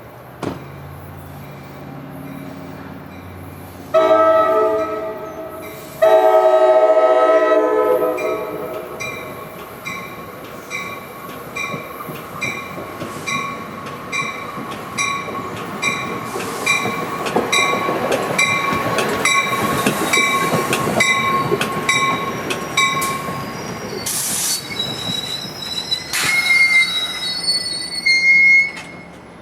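NJ Transit push-pull commuter train, led by its cab car, sounds two horn blasts, then rolls past with a rapid, steady clickety-clack of wheels over rail joints and a high wheel squeal. A couple of sharp bangs and more squealing come near the end as it slows.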